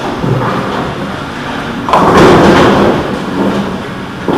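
Bowling ball rolling down a wooden lane with a low rumble, then crashing into the pins about two seconds in, followed by a short clatter; a smaller knock near the end.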